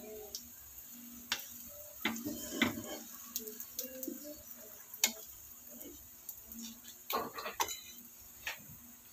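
Wooden spatula scraping and knocking against a nonstick frying pan, with irregular clatters, the loudest in a quick cluster about seven seconds in.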